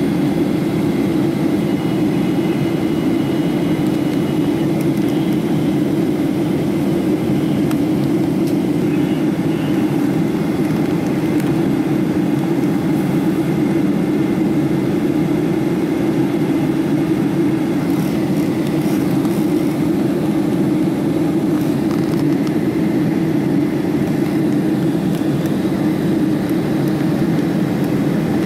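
Steady jet airliner cabin noise heard from a seat at the rear of the cabin: a constant low roar of engines and airflow that does not change.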